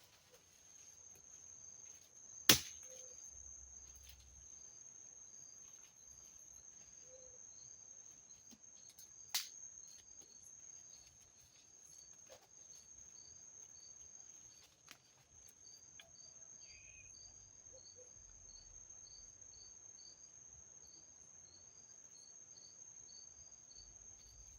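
Rainforest insects: a steady high-pitched buzzing tone with a faster pulsing chirp beneath it. A couple of sharp clicks stand out, the loudest about two and a half seconds in and another near ten seconds.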